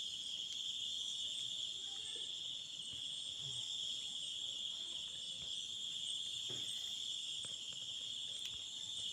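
Night-time crickets chirring in a steady, high-pitched chorus that runs on without a break.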